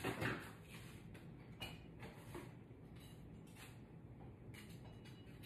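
Mostly quiet room tone with a few faint, scattered clicks and knocks.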